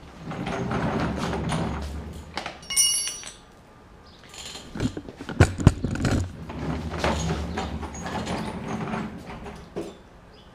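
Casters of a rolling shop stool rolling across a garage floor, twice. Between the rolls come a brief ringing clink of metal tools and a few sharp knocks as hand tools are picked up and set down.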